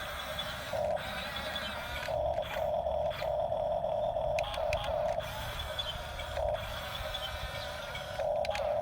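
The small electric motors and plastic gearboxes of a radio-controlled toy construction vehicle whirring in starts and stops, with scattered clicks.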